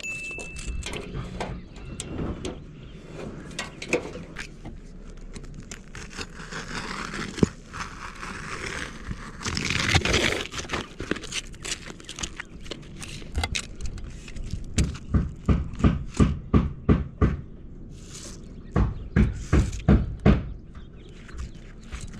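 Roofing work by hand on an asphalt-shingle roof: shingles and synthetic underlayment scraping and crinkling as they are handled and cut. In the second half come two runs of quick repeated strokes, about three a second.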